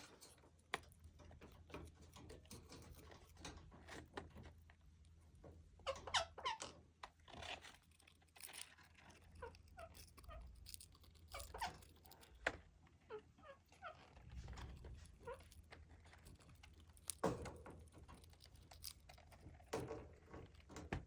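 Pet parrot making short, soft chirps and squeaky vocal sounds, with scattered clicks and taps.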